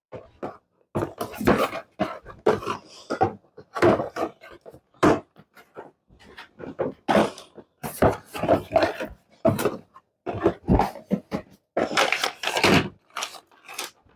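Irregular rustling, scraping and knocks from handling the cardboard and plastic packaging of a new multicooker while parts are lifted out of the box.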